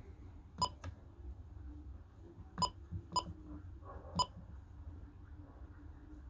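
Key-press beeps from an Icom IC-M330 VHF marine radio as its front-panel buttons are pressed: four short beeps of the same pitch at uneven spacing, the first about half a second in and the last about four seconds in.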